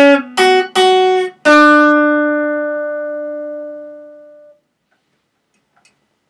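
Acoustic guitar played: a few quick struck notes, then a final note left to ring and fade over about three seconds as the song ends, cutting off about four and a half seconds in. A faint click near the end.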